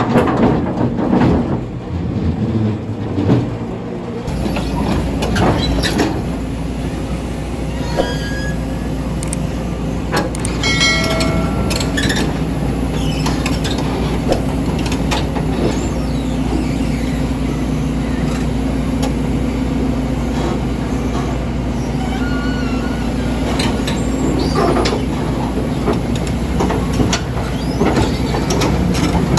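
Heavy diesel machinery running at a steady pitch, with scattered metal clanks and brief squeals. The first few seconds are rougher, with louder knocks, before the running settles into an even drone.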